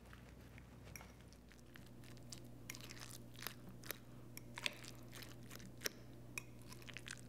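A metal fork stirring and mashing chunky guacamole (diced avocado, onion and tomato) in a glass bowl: faint squishing with scattered light clicks of the fork against the glass, coming more often from about two and a half seconds in.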